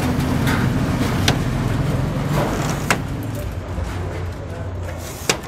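Low rumble of a passing road vehicle, slowly fading. A few sharp clicks and knocks come from the pigeon drinkers and cage doors being handled.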